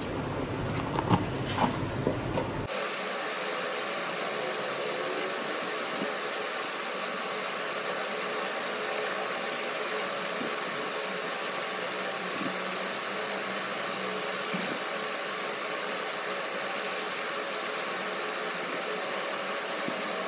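A few light knocks of a plastic container being handled, then tap water running steadily from a washbasin faucet into a plastic bowl while lentils are rinsed in it, with faint splashes now and then.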